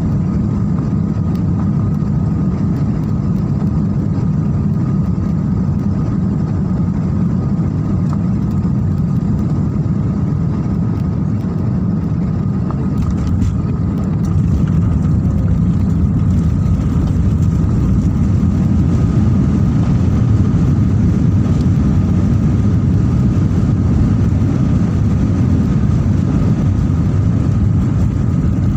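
Steady rumble of a jet airliner's engines and airflow heard from inside the passenger cabin, with a thin constant whine above it. The noise grows louder and hissier about halfway through.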